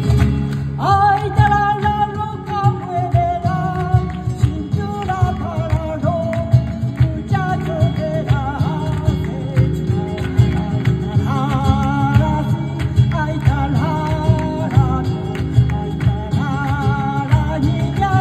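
Live flamenco rumba: a singer's voice over strummed flamenco guitars, with hand-clapping (palmas) and percussion keeping a steady beat. The voice comes in about a second in.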